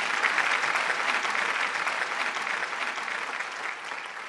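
Applause, a dense patter of many clapping hands, fading out toward the end.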